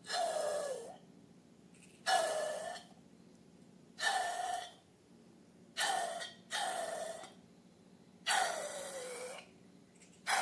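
A run of about seven short, airy hisses, one every second or two, each carrying a tone that slides downward.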